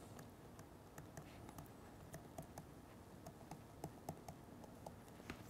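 Faint, irregular clicks and taps of a stylus on a tablet screen while words are handwritten, several small ticks a second over a near-silent room.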